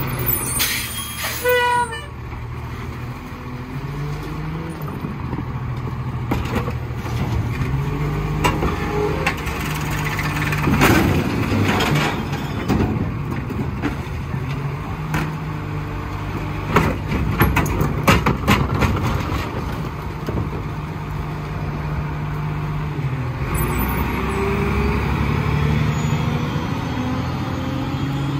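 Lodal EVO split-body garbage truck's engine running steadily, with clusters of sharp clanks and bangs near the middle of the stretch and again a few seconds later.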